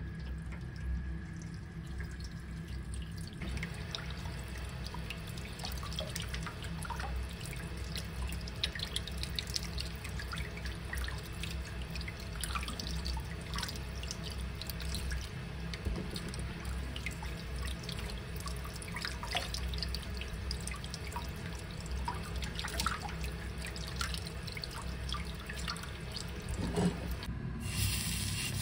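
Water running into a kitchen sink while parboiled pork pieces are rinsed by hand, with small drips and splashes throughout. This is the rinse that washes the scum off the pork after preboiling.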